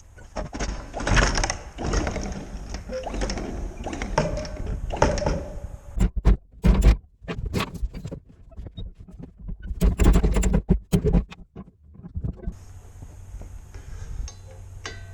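Anchor rode knocking and clattering in bursts as it is fed down into the chain locker, with hard thunks about six seconds in and again about ten seconds in.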